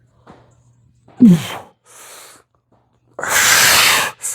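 A man breathing hard from exertion: a short grunting exhale with a falling voice about a second in, a softer breath, then a long, loud blowing exhale near the end, with another breath starting right after it.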